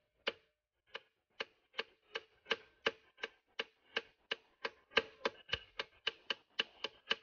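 A series of sharp clicks, about three a second, coming slightly quicker near the end, each with a brief ring.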